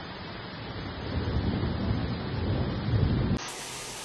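Rushing floodwater churning, with a low rumbling noise that grows louder about a second in. Near the end it cuts suddenly to the even hiss of torrential rain.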